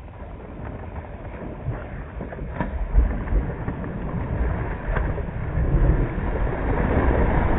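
Wind buffeting the microphone over water slapping a kayak, a steady rumble with a few faint knocks.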